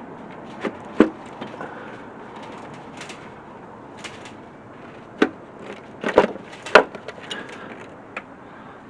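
Scattered sharp knocks and clinks of tools and engine parts being handled and set down, the loudest about a second in and a cluster of several between five and seven seconds in.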